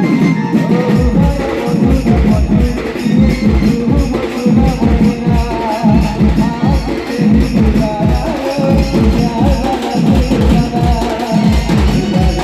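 Sambalpuri band music: fast, dense drumming with a wavering melody line over it.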